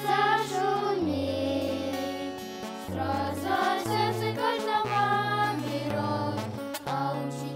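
Children's group singing a song together, accompanied by a strummed acoustic guitar.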